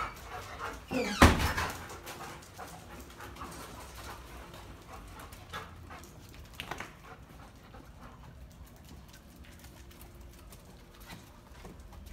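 Dalmatians panting and whimpering, with one loud sharp sound about a second in and a few short clicks after it.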